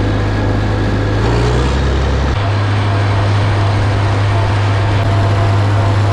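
Farm tractor engine running steadily under load, a loud low drone whose tone shifts about two seconds in.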